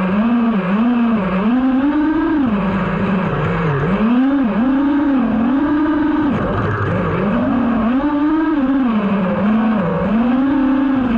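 FPV quadcopter's brushless motors whining, the pitch swooping down and back up over and over as the throttle is chopped and punched through freestyle moves, with one deeper drop about six and a half seconds in.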